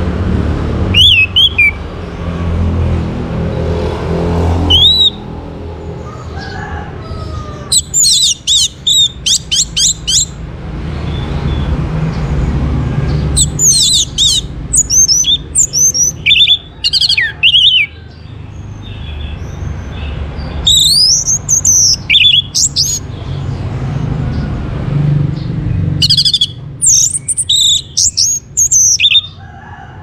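Orange-headed thrush (anis merah) singing in bursts of rapid, high sweeping whistles, about six phrases separated by pauses of a few seconds, over a steady low rumble.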